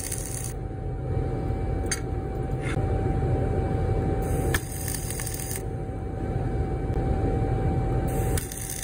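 Flux-cored wire welding arc crackling in short bursts of about a second each: tack welds on a fillet test plate, once at the start, again around four seconds in, and near the end. A steady hum runs underneath.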